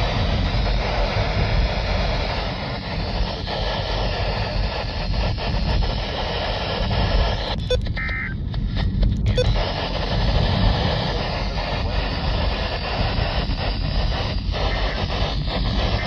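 Steady hiss of static from a Midland handheld NOAA weather radio as it is switched between weather channels, over a low rumble. About eight seconds in there are a couple of clicks and a short beep from its keys.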